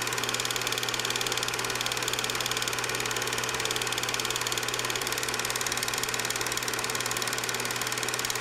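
8mm film projector running: a steady, fast mechanical clatter over a constant motor hum.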